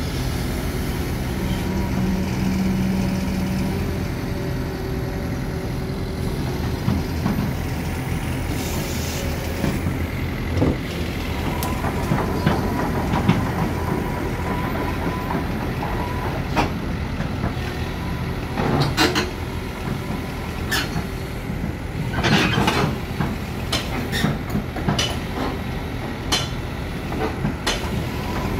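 Kobelco SK200-8 hydraulic excavator's diesel engine running steadily while the boom and bucket are worked, with a thin whine from about twelve seconds in and a series of sharp metallic knocks and clanks later on, the loudest about two-thirds of the way through.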